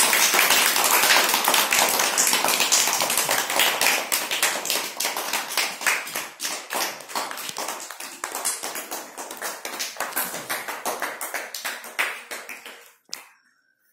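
A group of children clapping their hands, a dense patter of claps that slowly thins out and dies away near the end.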